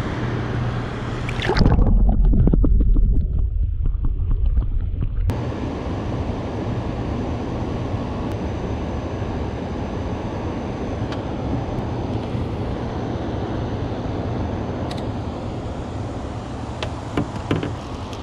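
A walleye is released by hand at the water's surface: loud, muffled low sloshing for a few seconds, then a steady rush of water with a low hum. A few sharp clicks near the end as a fishing reel is cast.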